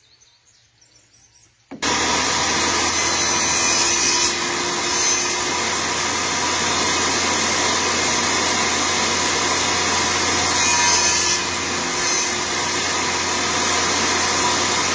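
Table saw switched on about two seconds in, starting suddenly and running loudly and steadily as a small wooden block is pushed through the blade, with a few brief swells as the blade cuts.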